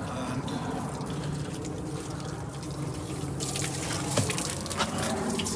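Water running and splashing steadily against a door under a flood test for leaks, growing brighter and busier about three and a half seconds in, over a low steady hum.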